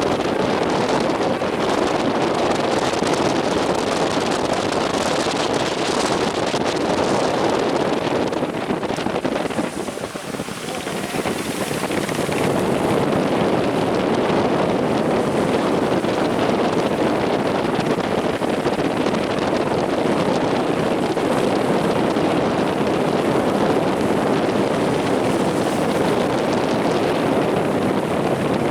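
Strong wind rushing over the microphone, with the noise of heavy surf beneath it; the wind dies down briefly about ten seconds in, then picks up again.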